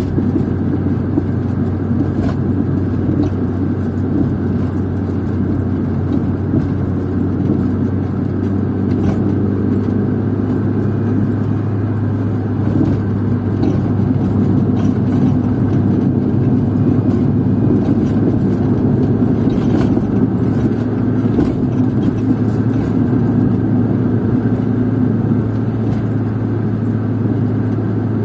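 Car driving, heard from inside the cabin: a steady engine hum under tyre and road noise, the hum rising slightly about halfway through as the car picks up speed.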